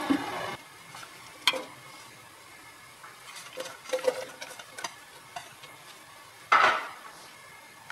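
Sliced onions going into a non-stick pan of oil. There is a sharp click, then light taps and a faint sizzle as the slices land, and a short loud burst of sizzling near the end.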